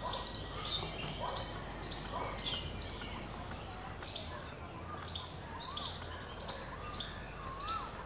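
Small birds chirping and calling all around, over a steady low background rumble. About five seconds in comes a quick series of five sharp falling notes, and near the end a couple of short whistled notes that rise and fall.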